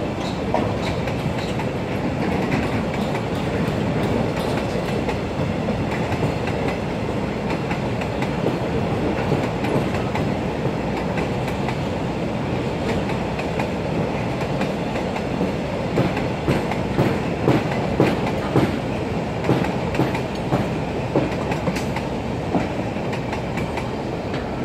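Container freight train rolling past: a steady rumble of steel wheels on rail. In the last third comes a run of regular clickety-clack wheel clacks, about two a second.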